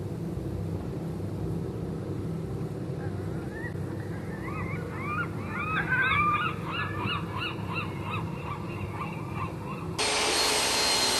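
A flock of birds calling, many overlapping rising-and-falling calls over a steady low hum. About ten seconds in it cuts to a louder, steady rushing noise with a thin high whine from workshop machinery.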